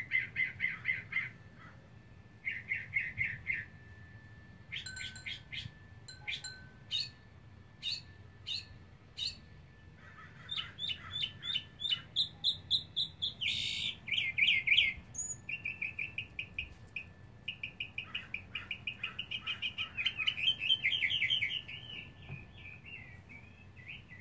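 Male mockingbird singing a long run of varied phrases, each short chirp or note repeated several times in quick succession before it switches to a new one; the unpaired male's song that advertises for a mate.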